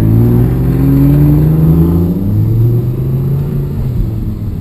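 Audi R8's 5.2-litre V10 heard from inside the cabin, running at low speed. Its note rises for about two seconds, then drops back to a lower, steadier run.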